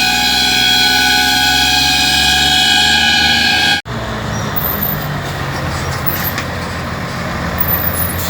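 Truck air horns blowing a steady multi-tone chord for about four seconds, then cutting off abruptly and giving way to a truck engine running steadily.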